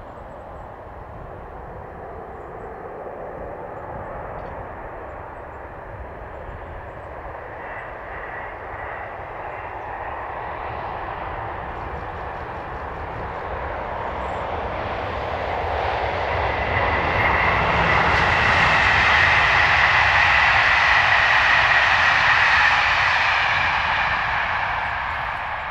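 Passenger train of Corail coaches passing at speed: a rushing rumble with a steady high whine on top, swelling slowly, loudest over the last third, and beginning to fade near the end.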